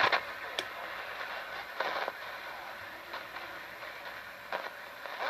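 CB radio receiver hissing with open-channel static, with a few faint crackles and brief garbled bits of distant signal breaking through.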